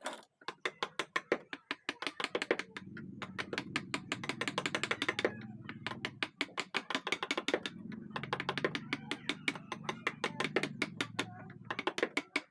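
Rapid, even tapping at about eight to ten strikes a second, with a low hum underneath from about two and a half seconds in until near the end.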